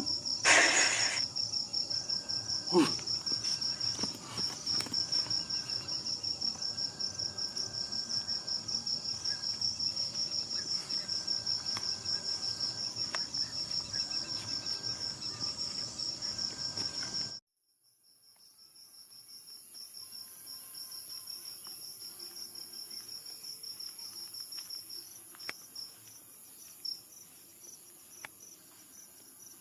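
Crickets chirping in a fast, steady pulsing trill, with a short rustle near the start. The chirping cuts off suddenly a little past halfway, then comes back fainter with a higher, thinner insect hum and a few faint ticks.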